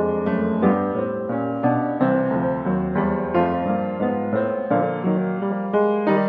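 Piano music: a run of chords and notes struck about three times a second.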